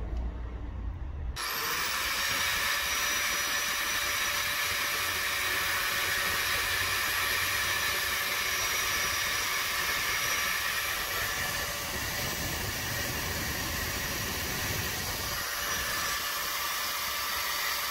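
Angle grinder switched on about a second and a half in, spinning up with a short rising whine, then running steadily at full speed as its disc slices the top off an egg.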